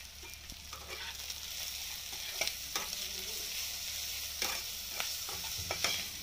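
Onions, chillies and chilli powder sizzling in hot oil in a non-stick wok, with a steady hiss. From about a second in, a spatula stirring them scrapes and clicks against the pan.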